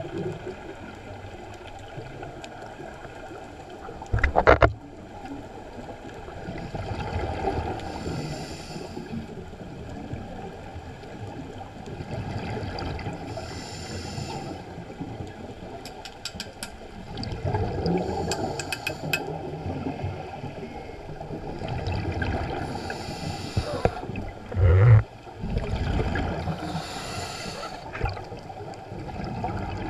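Underwater scuba breathing through a regulator: a hiss of inhalation and a rumble of exhaled bubbles, repeating about every four to five seconds. Two short loud thumps break in, about four seconds in and again about five seconds before the end.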